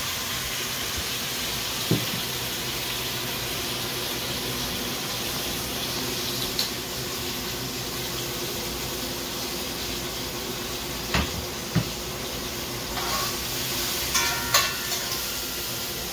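Onion and garlic sizzling in a pot of hot oil, a steady frying hiss. Several knocks and metallic clinks of pot lids and a spoon are heard, with a cluster near the end.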